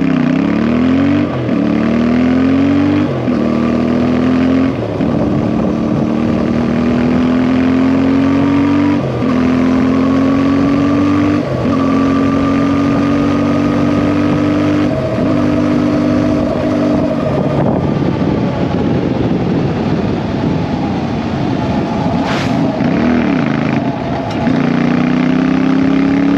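CFMOTO 450MT parallel-twin engine pulling along a gravel road. The engine note climbs, breaks briefly and climbs again several times as the rider shifts gears. Past the middle it falls and wavers off the throttle for a few seconds, then climbs again near the end.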